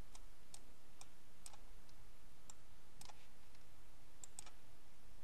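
Faint, unevenly spaced clicks of a computer mouse, about a dozen, over a steady low hiss.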